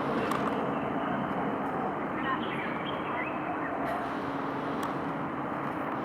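Steady outdoor background noise with a faint low hum and a few short, high chirps.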